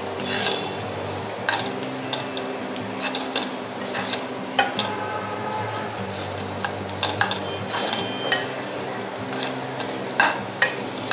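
Spatula stirring and scraping spiced mashed potato around a frying pan over a gas flame, with irregular scrapes and taps against the pan. Under it the pan sizzles steadily as the potato fries.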